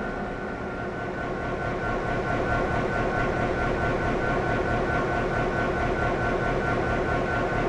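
T-class diesel locomotive idling: a steady engine rumble with a thin, constant high whine over it.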